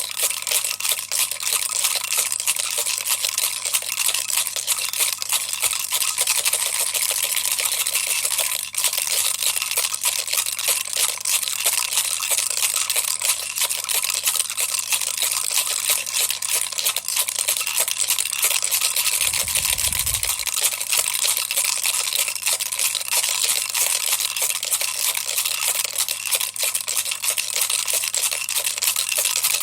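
Baby's toy rattle shaken continuously: a dense, even rattling of small beads, with a brief low thud about two-thirds of the way through.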